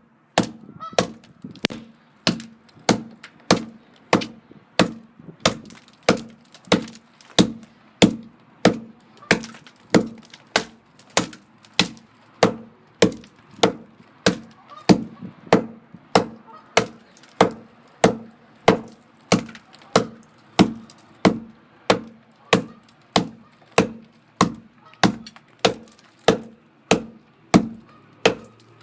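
Schrade SCAXE5 steel hatchet chopping into a log, its blade striking the wood in a steady rhythm of about three blows every two seconds.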